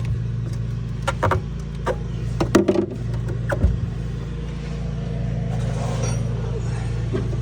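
Knocks and clunks of a donut spare tire and tools being handled and set into a car's rear cargo well, over a steady low hum.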